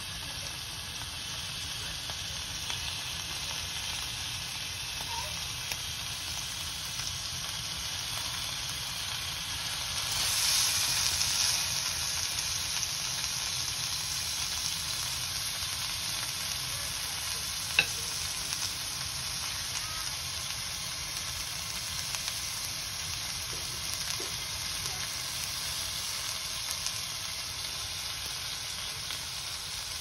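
A fridge-cold block of lamb curry sizzling in a hot frying pan: a steady frying hiss that swells for a couple of seconds about ten seconds in, with a single sharp pop a little past the middle.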